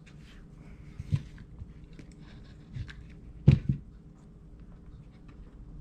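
Small craft blocks being handled and set down on a tabletop: soft rustling with a few light knocks, the loudest a quick double knock about three and a half seconds in.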